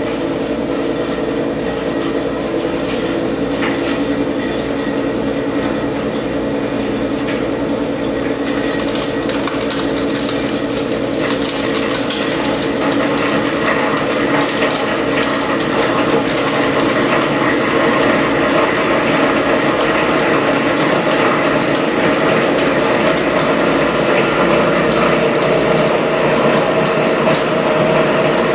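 SEM Model 2-SSD solid-state disintegrator and its filtration system running with a steady hum. About eight seconds in, a dense, rapid crackle sets in and continues as CDs and DVDs are fed in and chopped to particles in the cutting chamber.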